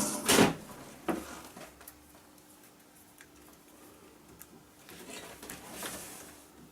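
Small knocks and ticks of tools and a metal workpiece being handled at a lathe: a knock just after the start, a sharp click about a second in, then faint scattered ticks and a soft rustle, over a faint steady hum.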